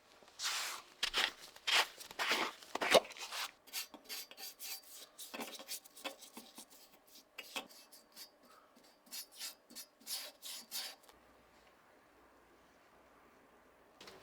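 Irregular rubbing and scraping strokes made by hand, loudest and quickest in the first few seconds, stopping about eleven seconds in.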